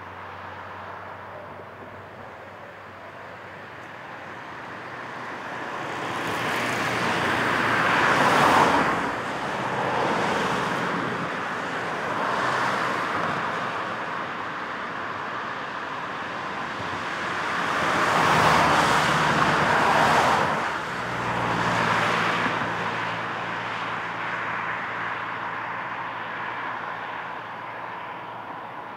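Street traffic noise: a steady hum of road traffic with cars passing by, swelling and fading. The loudest pass-bys come about eight seconds in and again around eighteen to twenty seconds.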